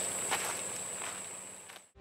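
Footsteps crunching on a gravel road, a few scattered steps, over a steady high-pitched buzz of outdoor ambience; everything fades out near the end.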